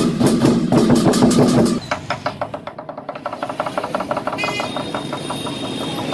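Vietnamese lion dance drums beaten loudly together with crashing cymbals. About two seconds in, the playing drops to a quieter, fast, even drum roll.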